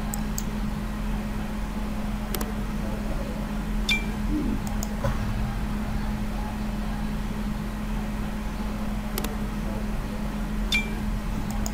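Steady low hum, like a fan or electrical hum, with a few faint, scattered clicks, two of them with a short high ping.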